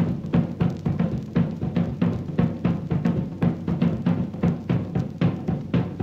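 Music: drums alone, low pitched drum hits in a fast, steady rhythm.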